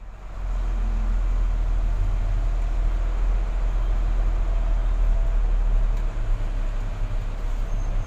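Mitsubishi Fuso 220 PS truck's diesel engine running, heard from inside the cab as the truck moves off slowly: a steady, loud low drone.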